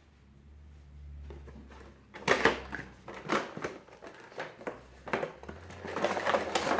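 Drone packaging being opened and handled by hand: irregular crinkling, crackling and knocks of plastic and cardboard that start about two seconds in, after a low hum.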